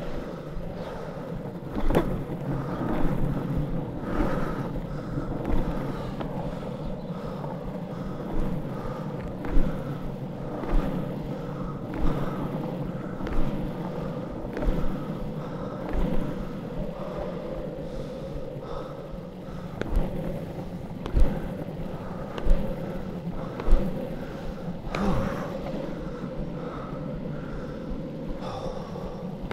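Longboard wheels rolling over tarmac: a steady rolling noise with a short knock about every second and a bit, as the board passes over bumps and seams in the road.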